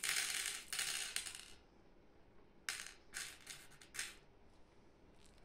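Small hard candy balls pouring and clattering into a carved wooden tray. A rattling rush comes in the first second and a half, then several shorter clatters around three and four seconds in.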